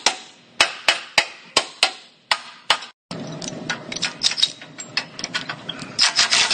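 A hand hammer strikes a crushed steel car frame rail about seven times, roughly half a second apart, each blow sharp and ringing briefly. The rail is being roughed out while it is clamped to a frame-straightening bench. After a break the taps come quicker and more tightly bunched over a steady lower noise, with harder blows near the end.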